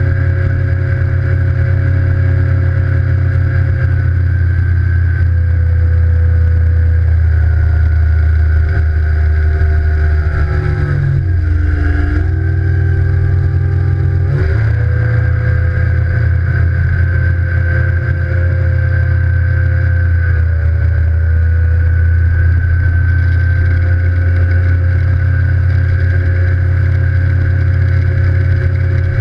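Evinrude E-TEC 150 HO two-stroke outboard running at speed, over the rush of its wake. About eleven seconds in, the engine note dips in pitch and climbs back about three seconds later.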